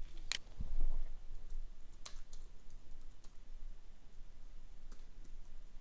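Computer mouse click and keyboard keystrokes: a sharp click near the start, then scattered single key taps as a name is typed.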